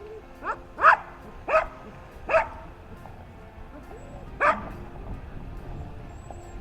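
Cavalier King Charles spaniel barking: four sharp barks in the first two and a half seconds, then one more a couple of seconds later. They are alert barks from a dog guarding its camp.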